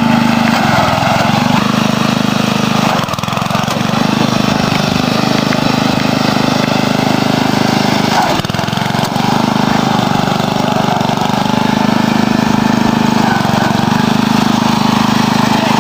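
Dynamark riding lawn tractor's engine running steadily as it is driven along, with two brief dips in level, about three seconds in and again about eight and a half seconds in.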